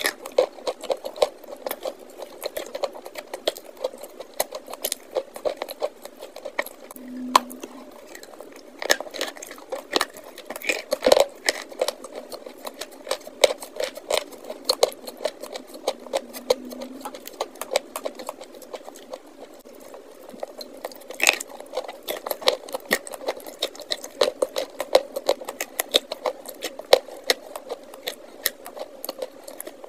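Close-miked crunching and chewing of a soft grey block of chalk being bitten and eaten: a dense, irregular crackle of small crunches, several a second, with a few louder bites.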